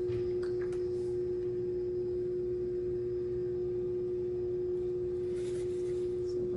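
Electric potter's wheel running at a steady speed, its motor giving an even hum at one constant pitch. A brief faint scrape comes near the end.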